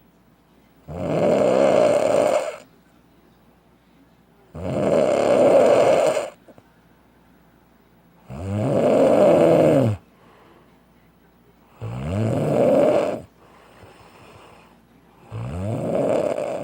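A man snoring loudly in his sleep: five long snores, each about a second and a half, coming regularly every three and a half seconds or so with quiet breathing gaps between.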